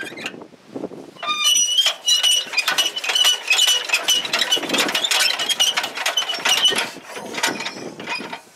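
Deutz dumper's diesel engine being hand-cranked with a starting handle: a rapid metallic clatter with a high squeal on it for about six seconds, stopping near the end without settling into a running engine.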